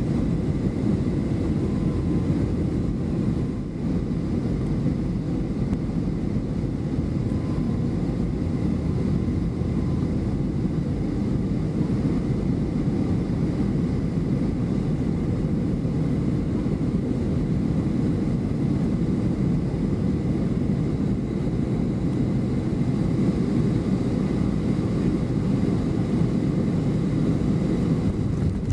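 Boeing 757-300 jetliner cabin noise on final approach: a steady roar of the engines and rushing air, heavy in the low range, with a faint high steady whine.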